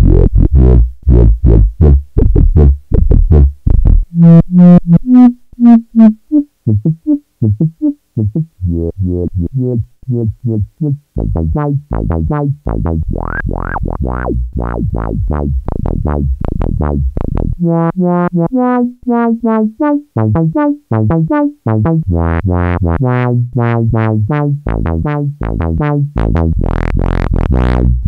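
Sawtooth-wave synth sequence played through a Studio Electronics 4075 Eurorack filter, short notes in a fast repeating pattern. The filter's controls are turned by hand, so the tone sweeps brighter and darker.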